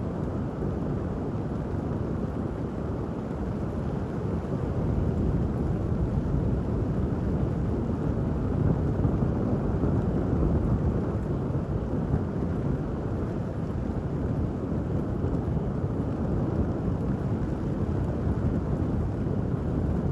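Steady rain ambience with a deep, dull rumble and little crisp patter. It grows slightly louder about five seconds in.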